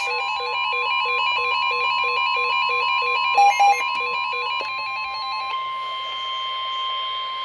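NOAA Weather Radio warning alarm tone sounding as one steady high note ahead of a flash flood warning broadcast. Over it, an electronic alert beeps in a fast repeating multi-note pattern until about five and a half seconds in, with two short louder beeps a little before that.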